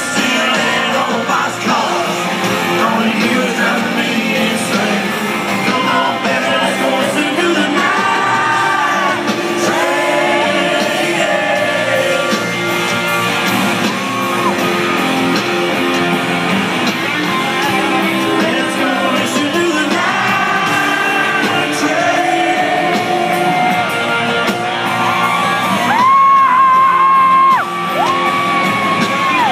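Live country-rock band with a male lead vocal, heard from within the audience of a large hall, with guitar and drums. Near the end the voice holds two long, high notes.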